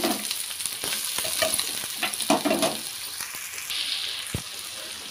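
Sliced onions sizzling in hot oil in a metal kadhai, with a steady hiss. A metal spoon stirs them, scraping against the pan a few times.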